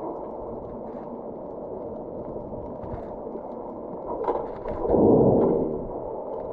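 Muffled water noise picked up by a camera held underwater. A few faint clicks come about four seconds in, then a louder whooshing swell lasts about a second.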